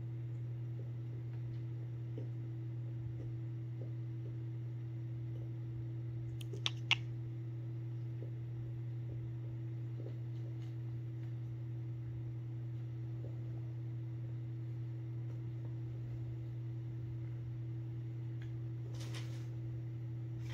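Steady low hum of a quiet room, with two sharp clicks in quick succession about a third of the way in and a soft rustle near the end.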